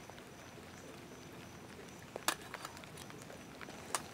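A few sharp metallic taps of a spoon against a small camp-stove pot and its lid, the loudest about two seconds in and near the end, over a faint steady patter of light rain.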